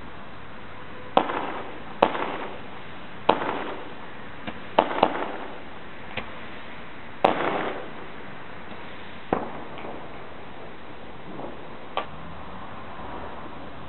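Fireworks going off on New Year's Eve: about ten sharp bangs at uneven intervals, the louder ones in the first half. Each bang trails off in an echo, over a steady background hiss.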